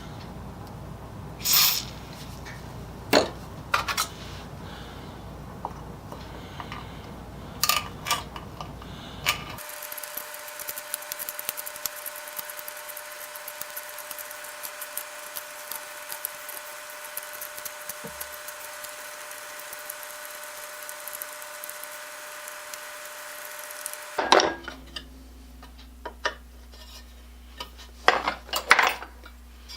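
Small metal tools clicking and knocking, then about ten seconds in an electric drill running at a steady pitch for roughly fourteen seconds before stopping, followed by more clicks. The drill is opening a damaged bolt hole in a magnesium chainsaw housing to tapping size.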